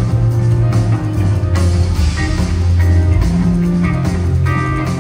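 Live rock band playing an instrumental passage: electric guitars over a steady bass line and drums.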